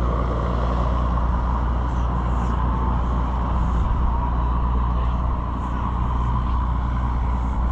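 A large engine running steadily with a low, even hum.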